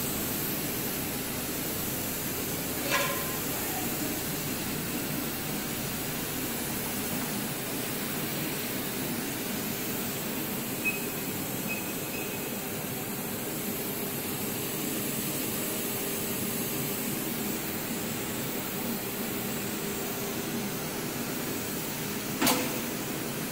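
A hot air tape sealing machine's blower runs with a steady hiss. A few short faint beeps come from its touchscreen midway, and there are sharp clicks about three seconds in and near the end.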